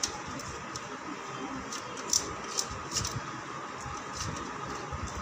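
A few light clicks and soft scrapes of a spoon taking butter and spreading it on bread slices on a steel plate, over a steady background hiss.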